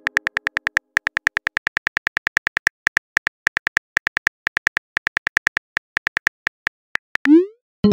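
Simulated phone keyboard typing clicks, a quick steady run of about six taps a second as a text message is typed. The tapping stops about seven seconds in, followed by a short rising swoosh as the message is sent.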